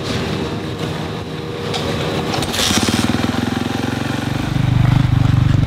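Suzuki RM-Z450 motocross bike's single-cylinder four-stroke engine running. Its note turns heavier and pulsing about two and a half seconds in and gets louder again about four seconds in.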